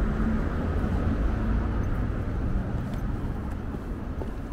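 Road traffic on a city street: the low rumble of a passing vehicle's engine and tyres, slowly fading.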